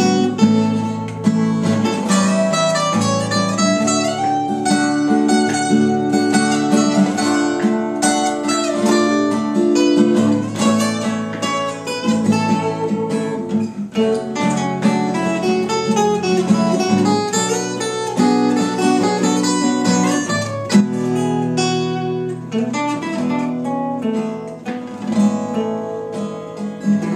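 Two acoustic guitars playing together in the key of A: one picks a lead line of single notes while the other strums the rhythm chords.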